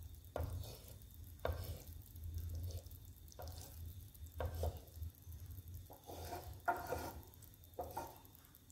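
Egg frying with a faint steady sizzle in a stone-coated nonstick pan while a wooden spatula scrapes and pushes around the edges of the white, about six separate strokes, the busiest about two-thirds of the way through.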